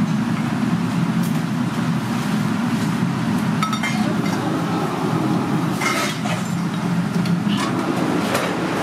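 Steady low machine hum of a commercial kitchen, with a few light clinks scattered through it.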